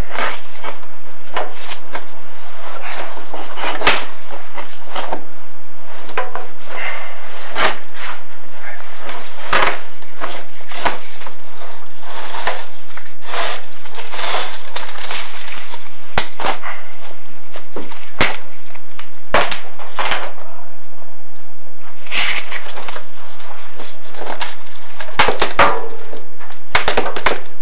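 Irregular knocks and scraping, a chimney inspection camera and its push rod rubbing and bumping against the flue walls and creosote deposits as it is moved along.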